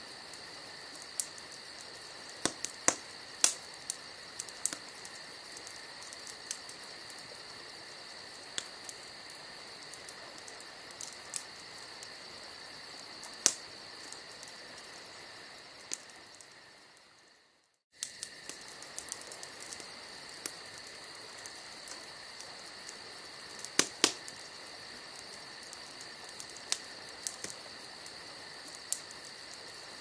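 Wood fire of logs and broken pallet planks crackling in a glass-fronted fireplace, with irregular sharp pops over a steady hiss. The sound fades out a little past halfway and cuts back in.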